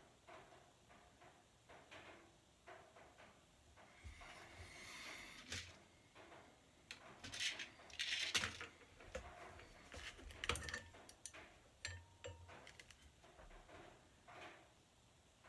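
Small parts and tools being handled during assembly: scattered light clicks and knocks, a stretch of scraping about four seconds in, and a few sharper clacks around the middle.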